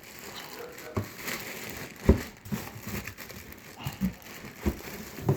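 Plastic packaging around a new wheel crinkling as it is handled and pulled open, with a few irregular knocks of handling.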